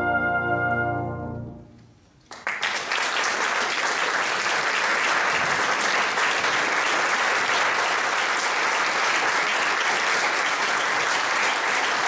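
A brass band with cornet soloist holds a final chord that dies away in the first two seconds; after a brief pause, steady applause starts and continues.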